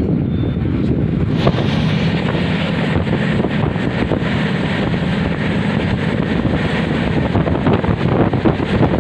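A passenger train running at speed: the steady rumble of the coaches on the track, with wind buffeting the microphone. The noise grows hissier about a second and a half in.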